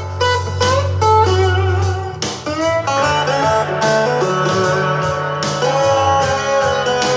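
Music played back on a portable Bluetooth speaker: a guitar-led song with bending, gliding lead notes over a steady bass line.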